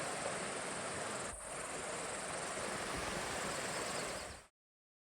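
Steady outdoor hiss with a high, even buzz above it, briefly dipping about a second in, then cutting off abruptly to dead silence about four and a half seconds in.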